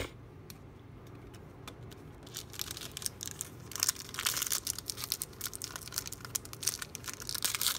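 Foil wrapper of a football trading-card pack crinkling and crackling as it is handled and pulled open, starting about two seconds in.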